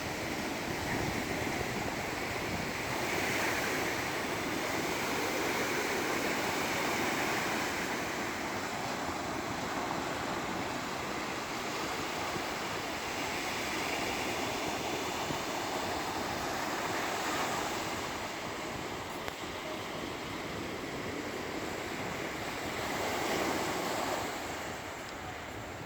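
Waves breaking on the shore, a steady rush of surf that swells and fades every several seconds, with wind on the microphone.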